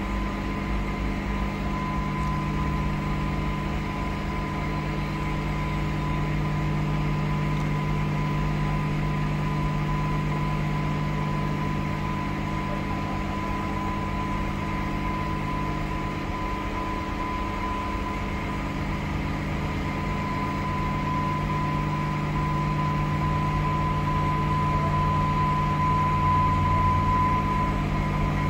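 Steady diesel engine hum from idling city buses and an approaching commuter train, with a constant high-pitched tone over it. It grows slowly louder toward the end as the train nears the platform, with low wind rumble on the microphone in the first few seconds.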